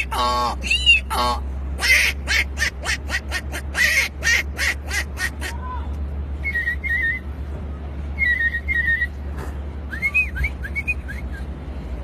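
A man imitating bird and animal calls with his voice: a few arching cries at the start, then a fast run of sharp chirps, then short warbled whistles and rising-and-falling whistles toward the end.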